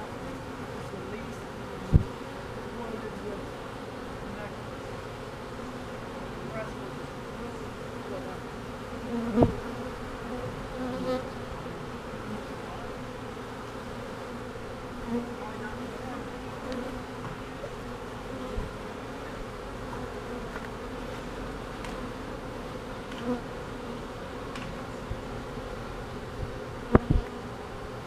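A swarm of honey bees humming steadily as they crowd a hive entrance, a newly caught swarm being coaxed into the box. A few sharp knocks stand out over the hum, two of them close together near the end.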